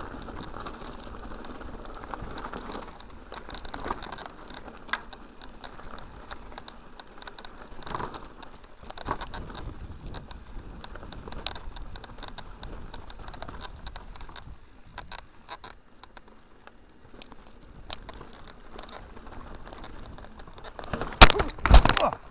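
Mountain bike rattling and crunching down a rough dirt and stone track, with many small clicks and knocks. Near the end, two loud crashing impacts close together as the bike goes down and the rider falls off.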